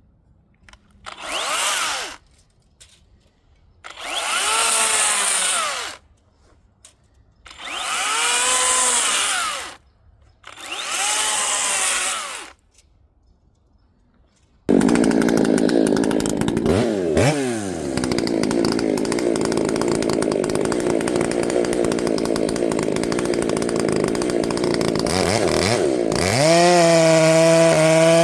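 Four short hissing bursts, then a chainsaw running loud and continuous, its pitch dipping briefly and then rising to a steady high whine near the end.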